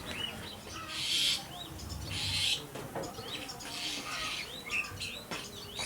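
Small birds chirping over and over in short, quick chirps, with two brief rustling hisses about one and two seconds in.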